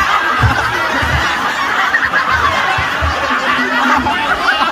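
A large crowd laughing and chattering, with low drum beats of the accompanying music thudding underneath at irregular intervals.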